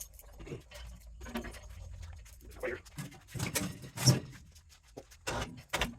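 Handling noises: irregular knocks and shuffling as a heavy pump unit is moved onto a scale, with one sharper knock about four seconds in.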